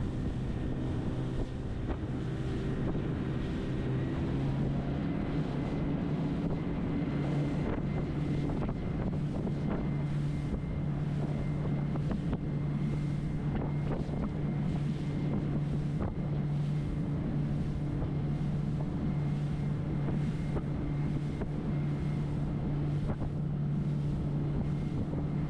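Small open motorboat's engine running steadily under way; the engine note steps up slightly about seven seconds in. Wind buffets the microphone over water rushing and slapping against the hull.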